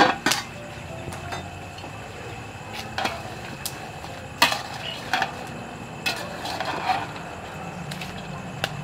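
Metal spatula knocking and scraping against a large wok of curry as purple long beans are stirred in: several sharp clanks spaced irregularly, a second or so apart, the loudest at the start and about halfway through, over a steady low hum.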